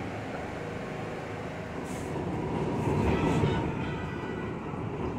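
New York City subway train running on the line: a steady rumble that grows louder about three seconds in, with a brief high hiss around the loudest part.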